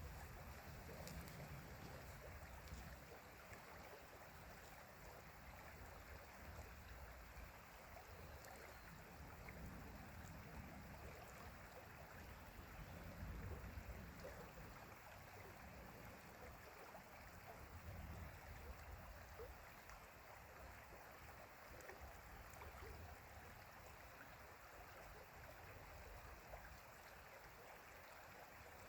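Faint, steady rush of running stream water, with a low rumble that swells and fades every few seconds.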